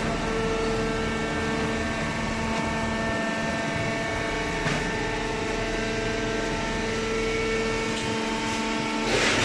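Machinery running steadily, a hum of several fixed tones over a rushing noise, with a short knock about halfway and a louder one near the end.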